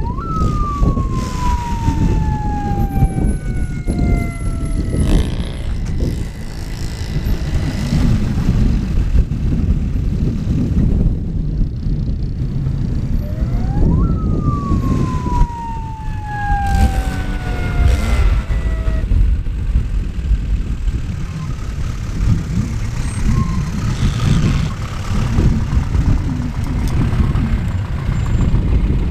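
Off-road vehicle engines running with a heavy low rumble. Twice a whine rises briefly and then falls slowly over about five seconds.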